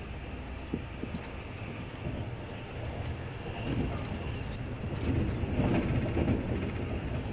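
Passenger train running at speed, heard from inside the carriage: a steady low rumble of the wheels on the rails with scattered sharp clicks, growing louder about five seconds in.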